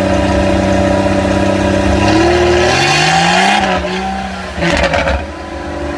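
1992 Jeep Cherokee XJ engine running steadily, then revving up with a rising pitch about two seconds in and falling back. A short noisy burst comes about five seconds in, before the engine settles to a steady note.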